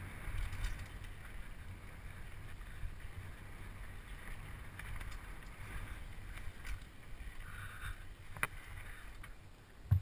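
Wind buffeting a helmet-mounted camera's microphone over the rumble of mountain bike tyres rolling on a dry dirt trail during a downhill run, with scattered small rattles and one sharp click about eight seconds in.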